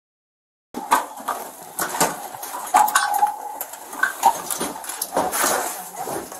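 Sound cuts in under a second in: close-up clicking, clinking and rattling of police officers' gear as they move, with a few short high-pitched whines.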